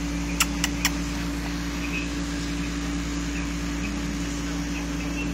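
Steady mechanical hum, like a fan or air conditioner, with three quick sharp clicks in close succession about half a second in.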